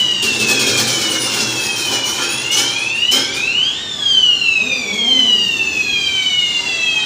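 A siren-like wailing tone that sweeps up quickly and then falls slowly over about three seconds, twice, over a noisy clattering background; it cuts off suddenly at the end.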